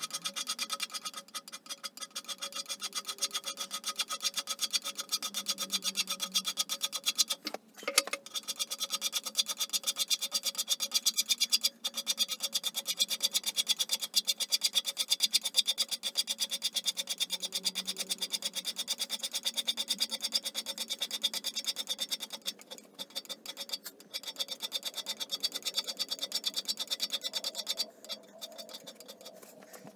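Hand scraper working the cast iron bed ways of a Holbrook T13 lathe: a fast, even run of scraping strokes with a few short pauses. This is step-scraping to take out the worn belly in the bed, about two thou at its worst.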